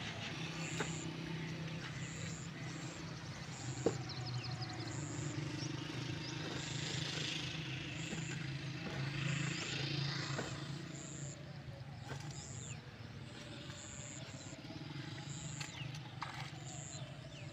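A steady low engine-like hum, with a short high chirp repeating about once a second and a sharp knock about four seconds in.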